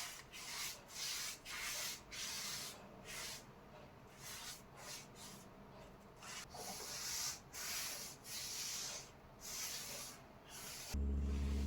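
A brush being stroked over a surface, laying on a coat of finish: a string of soft swishing strokes, about two a second. Near the end a steady low hum starts.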